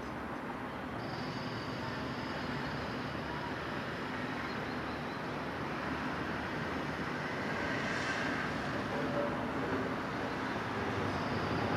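Steady outdoor town ambience: a constant wash of distant road traffic.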